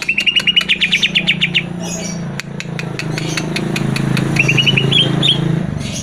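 Greater green leafbird (cucak ijo) singing: a fast trill of repeated chirps at the start and a shorter, rising trill a little past halfway, with sharp clicking notes between them. A steady low hum runs underneath and grows louder in the second half.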